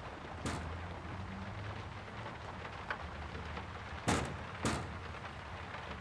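A steady hiss over a low hum, broken by three sharp knocks: one about half a second in and two close together a little after four seconds.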